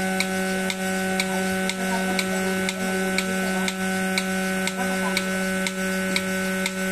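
Portable cow milking machine running: the electric vacuum pump gives a steady hum while the pulsator on the milk can lid clicks evenly about twice a second.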